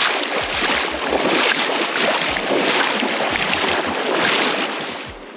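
Rushing, splashing river water close by as a person wades through it, with faint low thumps underneath. The water noise fades about five seconds in.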